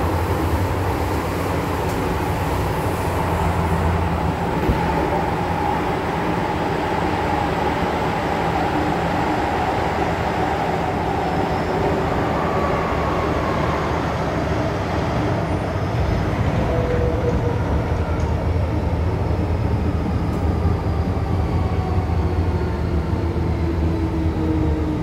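MTR M-Train electric multiple unit running and slowing into a station, heard from inside the car: a steady rumble of wheels on the track, with a faint traction-motor whine that falls in pitch through the second half as the train brakes.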